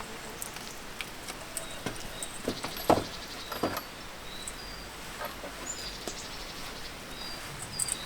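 Short, high bird chirps repeated at irregular intervals, over scattered light knocks and clicks, one louder knock about three seconds in.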